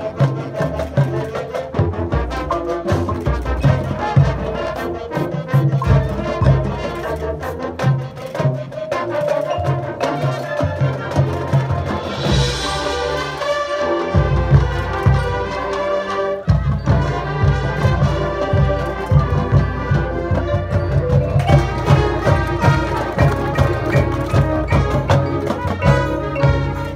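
Marching band playing its field show: brass carrying the melody over drumline percussion, with a bright cymbal-like crash about halfway through.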